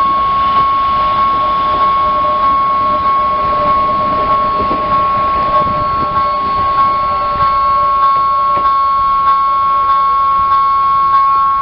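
Electronic warning bell of a railway level crossing ringing while the crossing is closed: a loud, steady, high-pitched ding repeated a little under twice a second. A passing electric commuter train can be heard faintly beneath it.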